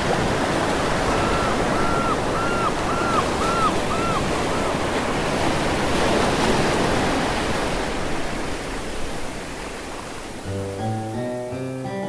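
Ocean waves washing in a steady rush, with a run of about seven short rising-and-falling high calls in the first few seconds. About ten seconds in, the waves fade and the instrumental intro of a sea shanty begins with held chords.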